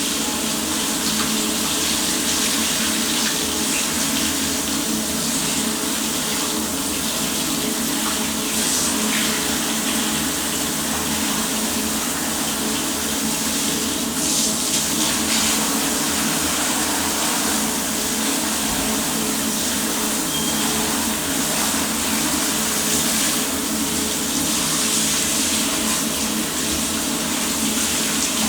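Hot water running steadily from a tap, rinsing an electrostatic furnace filter to flush fine drywall and sanding dust out of it.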